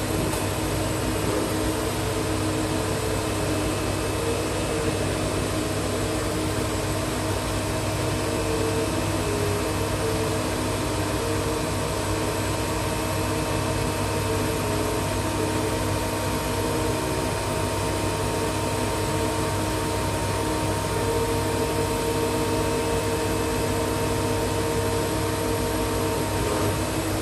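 Laser cutter running as it cuts a sheet: a steady whir of its fans and air pumps, with whining tones from the moving head's drive that come and go and change pitch.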